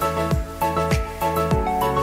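Background music with a steady kick-drum beat, about one beat every 0.6 seconds, under a melody.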